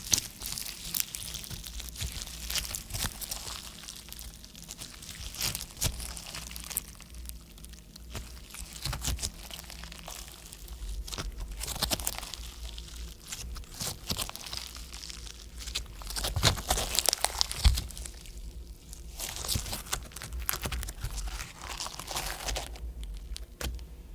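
Clear slime being kneaded and squeezed by hand with makeup mixed in: a dense run of small irregular clicks and crackles that swells and fades every second or two.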